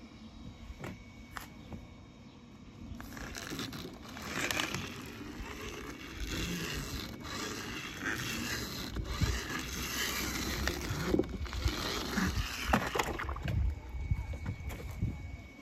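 Plastic wheels of a toy monster truck rolling and scraping over paper in irregular strokes, starting a few seconds in, with a few light knocks as the toy is handled.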